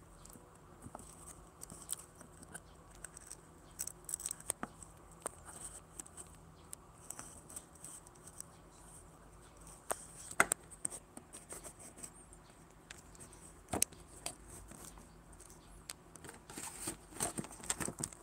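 Faint scattered clicks and light rustling from handling of the phone, with two sharper clicks around the middle. A denser burst of rustling and clicks comes near the end as the phone is moved.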